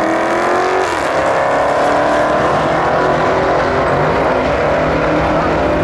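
A green Dodge Charger and a blue Ford Mustang accelerating hard side by side down a drag strip, their engines revving up at full throttle. The engines drop in pitch at a gear change about a second in, then climb again.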